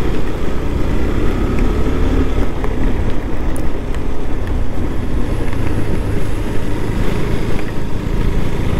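Riding a KTM 390 Adventure motorcycle at around 30 to 40 km/h on a wet road: its engine running under a steady, fluctuating wind rumble on the rider's microphone.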